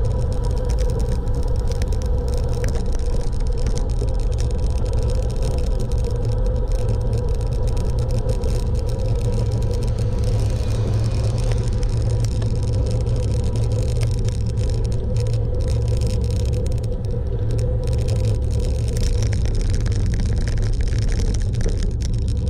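Steady rumble of a moving vehicle heard from on board: unbroken road and wind noise with a faint steady tone above it.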